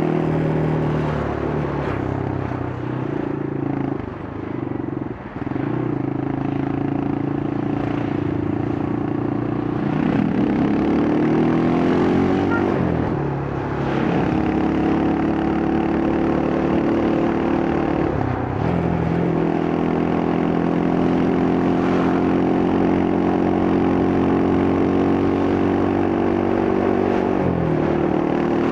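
Yamaha Scorpio's single-cylinder four-stroke engine running under way, its exhaust note falling and climbing several times with throttle and gear changes, rising steadily about ten seconds in.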